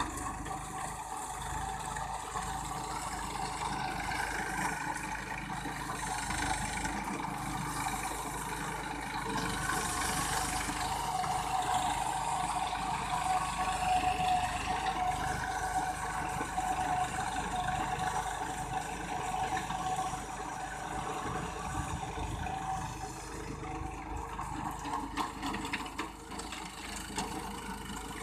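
New Holland 4510 tractor's diesel engine running steadily under load while ploughing.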